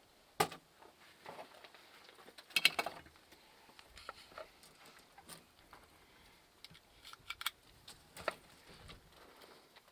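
Cartridges being pressed one at a time into a new 1911 .45 pistol magazine: scattered small metallic clicks and clinks, a second or two apart, with the loudest in the first three seconds. The loading is smooth.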